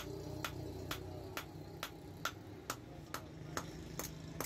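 Hand hammer forging a red-hot steel blade, made from an old file, on a block anvil: a steady rhythm of sharp metallic blows, a little over two a second, each with a brief ring.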